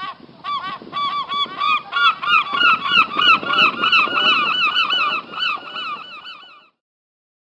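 A flock of geese honking, many short calls overlapping several times a second, growing louder to a peak about three seconds in and then fading out.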